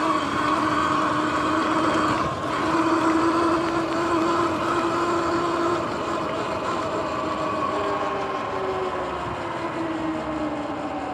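Sur-Ron X electric dirt bike's motor whining as it rides at speed, over a steady rush of tyre and wind noise. The whine falls gently in pitch in the second half as the bike slows.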